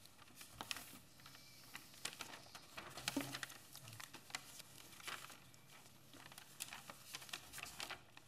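Faint rustling of papers with scattered light clicks and knocks, as papers and small objects are handled at a meeting table.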